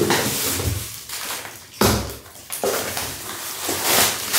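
Cardboard box flaps being pulled open and plastic air-cushion packing bags rustling and crinkling as they are handled, with a sudden thump of cardboard about two seconds in.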